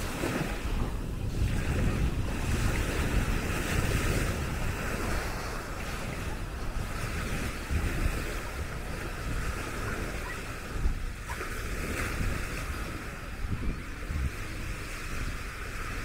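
Small sea waves washing onto a sandy shore, with wind rumbling on the microphone.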